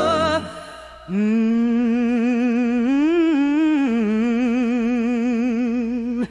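Singing voice holding one long wordless vowel with a wide vibrato, part of a gospel-style ballad's chorus. The note comes in about a second in after a short lull, rises in pitch for a moment around the middle, then settles back to the first pitch.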